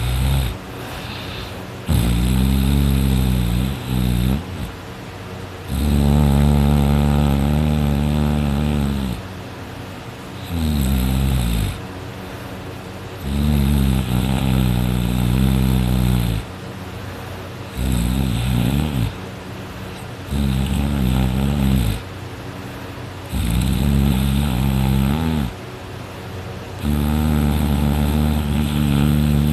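A person snoring loudly in deep sleep. Each snore is a long, low, buzzing breath lasting one and a half to three seconds, and they come in a steady rhythm about every three to four seconds.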